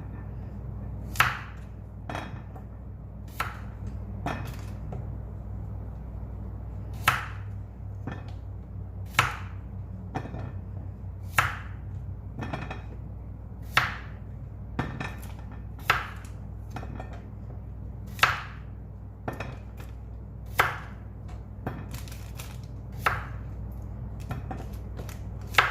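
Kitchen knife cutting potatoes on a chopping board: single chops about one a second, coming closer together near the end, over a steady low hum.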